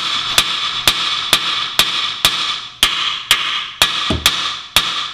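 Ball-peen hammer striking the steel steering knuckle at a Mk4 Golf's front strut about twice a second, each blow a sharp metallic clank with ringing. The blows are driving the knuckle down off the strut tube to free the strut.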